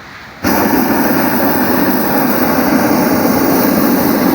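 Hot-air balloon's propane burner firing in one long, loud blast. It cuts in abruptly about half a second in and holds steady, heating the air in the sagging envelope to re-inflate it.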